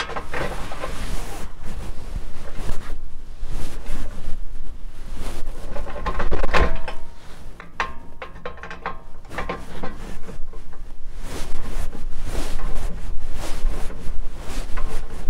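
12-inch Craftsman hand ratchet cranking down the U-bolt nut on an exhaust pipe-to-muffler clamp, its pawl clicking in irregular runs between pulls, with a louder metallic knock about six and a half seconds in.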